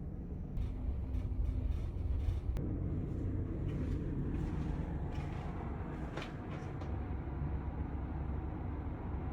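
Steady low rumble aboard the ferry Naminoue under way in rough seas: engine and hull noise, with a few faint knocks and creaks.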